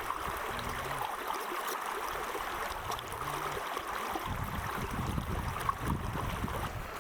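Stream of running water flowing over rocks, a steady rushing. From about four seconds in, a low rumble of wind on the microphone joins it.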